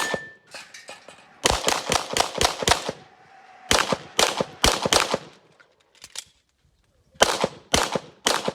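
Glock 34 9 mm pistol firing rapid strings of shots, about three runs of quick shots with short pauses between them.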